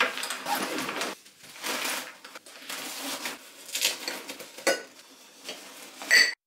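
Handling noises: irregular rustling and light clattering of objects, ending in a sharp clink that rings briefly just before the end.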